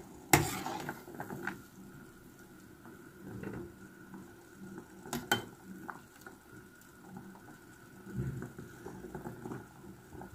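Perforated metal skimmer knocking against an aluminium saucepan while boiled mushrooms are scooped out of the broth: two sharp clinks, one just after the start and one about five seconds in, with quieter knocks between.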